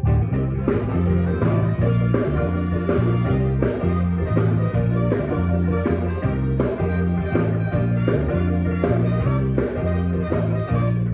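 Pit band playing an upbeat rock-and-roll style number: a bass line moving about two notes a second under a steady drum beat, with keyboards and guitar on top.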